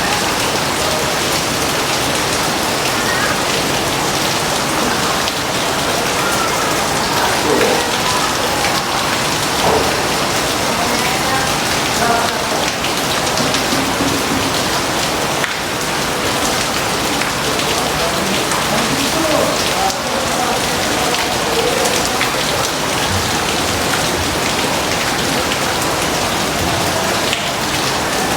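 Steady heavy rain falling: an even hiss of drops with scattered louder drips and splashes.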